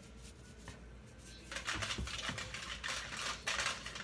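Red sprinkles rattling in a small shaker bottle as it is shaken over a cake, a fast stream of ticks starting about a second and a half in.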